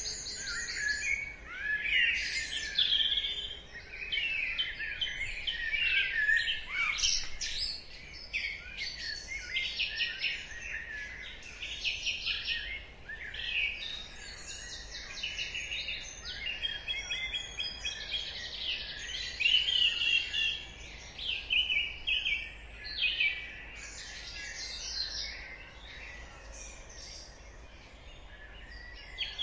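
Dawn chorus: many songbirds singing at once, overlapping trills, chirps and warbling phrases, over a faint low background hum.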